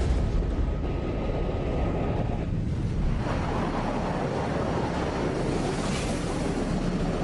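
Steady rushing roar of jet flight in a re-created air-combat sound effect, thinning briefly about two and a half seconds in before filling out again.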